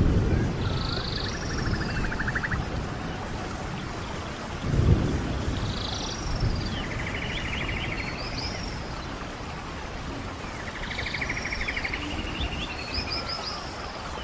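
Rain falling steadily in a tropical rain forest, with birds calling over it: the same phrase, a few high whistled notes and a buzzy trill, comes about three times. Low rumbles come near the start and again about five seconds in.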